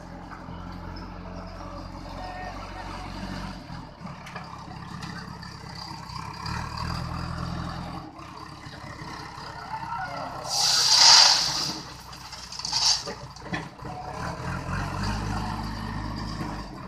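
JCB 3DX backhoe loader's diesel engine running, its note rising and falling as it works. About ten seconds in comes a loud rush of stone pouring from the front bucket into the steel tractor trolley, then a shorter spill about two seconds later.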